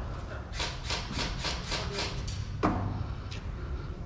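Airsoft gunfire: a quick run of sharp shots at about five a second, then a louder single shot a little past halfway and a fainter one soon after.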